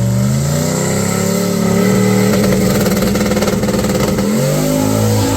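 Turbocharged LS V8 of a Holden VH Commodore wagon at full throttle on a drag pass, loud, its pitch climbing, then dropping at a gear change a little over four seconds in and climbing again.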